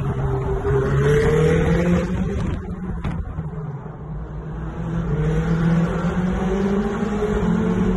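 Sports car engines accelerating hard in a road tunnel. The engine note climbs over the first two seconds, falls away and quietens about three to four seconds in, then climbs again.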